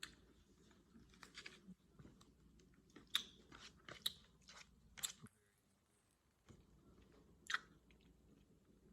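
A person chewing fettuccine alfredo, with a few sharp mouth clicks standing out about three, four, five and seven and a half seconds in, and a short lull around six seconds in.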